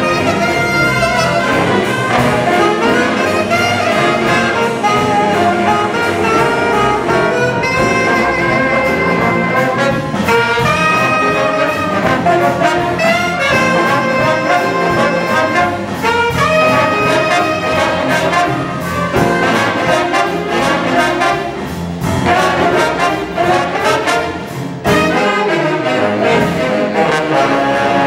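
A jazz big band playing live, with saxophones, trombones and trumpets sounding together over sharp rhythmic hits.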